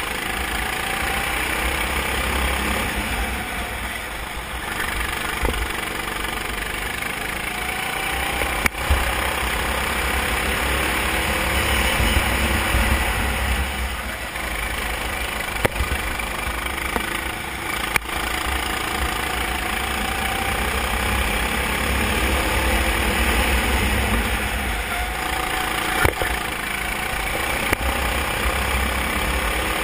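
Racing kart engine heard from on board, its pitch rising and falling as the kart accelerates and slows through corners and straights, over a heavy rumble of wind on the microphone. A few sharp knocks come through during the lap.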